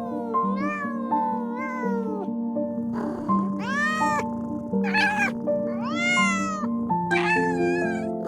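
A cat meowing repeatedly: a string of rising-and-falling meows, the longest and loudest in the second half, over soft piano music.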